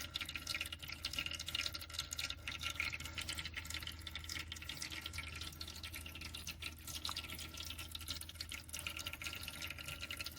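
Veken 2.8-litre pet water fountain running: water trickling and dripping steadily over the fountain with a small pump's low, steady hum underneath.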